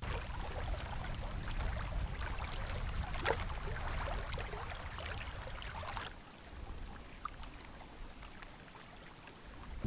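Small waves lapping and splashing at a lake's edge, with wind rumbling on the microphone. About six seconds in the lapping drops away, leaving fainter wind.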